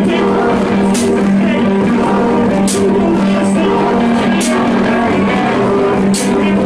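Live music played loud in a bar: a sustained droning chord with a short hissing accent about every one and a half to two seconds.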